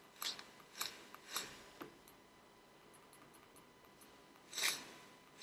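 Faint crackling and sizzling of e-liquid on a rebuildable dripper's 0.08-ohm nichrome flat-wire coils, freshly wicked with cotton, fired in short priming pulses. A few quick crackles come in the first two seconds, then a longer hiss near the end.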